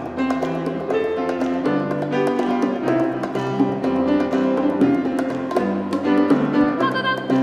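Live ensemble playing an instrumental passage: piano chords with drums and percussion keeping a steady beat.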